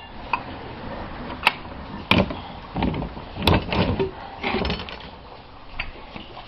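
Irregular sharp knocks and clattering, about five distinct knocks with rustling handling noise between them, busiest in the middle, from pipe and tools being handled while fitting a gas connection.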